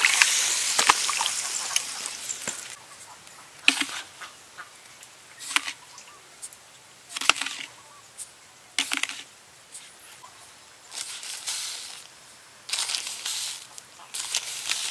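Chopped vegetables and herbs dropped into a wok of water, splashing and sloshing, with the sound fading over a couple of seconds. After it come a few scattered short knocks and, near the end, brief rustling sounds.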